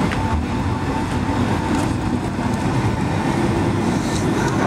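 Boeing 757-200's jet engines running, a steady rumble with a constant high whine.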